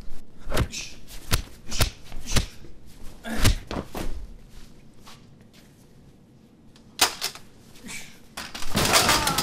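Fight sound effects of punches and kicks landing: a run of sharp, separate hits, about six in the first four seconds, then two more about seven seconds in, followed by a longer rushing noise near the end.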